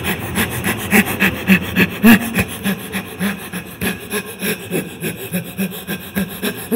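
A woman panting hard and fast, loud in-and-out breaths through the open mouth in an even rhythm of about four to five a second: the breathing of someone badly out of breath.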